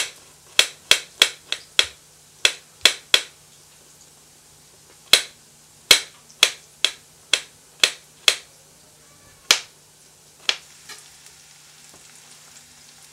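Kitchen knife chopping garlic on a glass cutting board: sharp clicks as the blade strikes the glass, in uneven runs of about three a second with a short pause about three seconds in. The chopping stops about ten seconds in.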